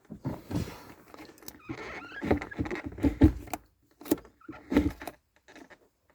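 A string of short plastic clicks and knocks, with a brief scrape, from a Holden VY Commodore's automatic shifter button and bezel being worked by hand once the new button has been seated.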